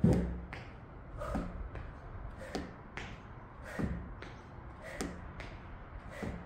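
Trainers landing on a wooden plyo box and floor mat during explosive alternating lunges: a thud about every second and a quarter, with lighter taps between, the loudest landing right at the start.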